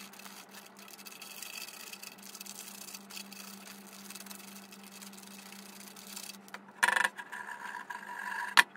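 Cork dust sliding and rustling inside a clear resonance tube as it is tilted, a faint hiss. About seven seconds in a louder scrape sets up a ringing tone in the tube for about a second and a half, and a sharp tap follows just before the end, over a steady low hum.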